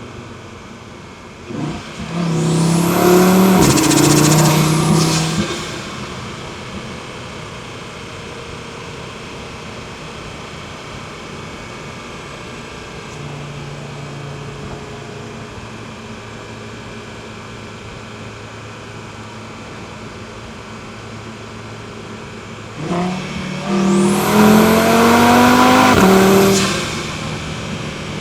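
Audi TT RS's turbocharged 2.5-litre five-cylinder, heard from the intake side, pulling hard twice: the engine note rises in pitch for a few seconds with a loud rushing hiss of intake and turbo air. In between it settles into a steady cruising drone.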